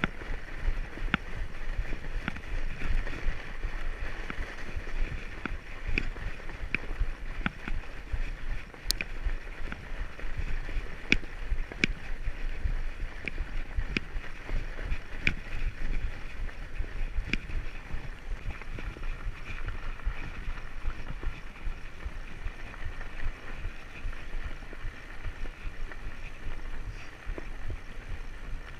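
Fat bike riding on a packed snow trail: the wide tyres rolling over snow with a steady rushing noise and a low rumble, with scattered sharp clicks every second or so.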